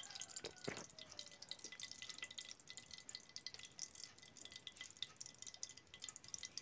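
Hot ghee faintly crackling in a kadhai: a steady scatter of tiny, irregular pops and ticks as the fat comes up to frying heat.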